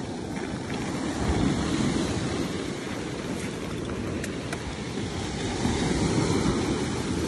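Ocean surf breaking and washing up onto a sandy beach: a steady rush that swells about a second and a half in and again near the end.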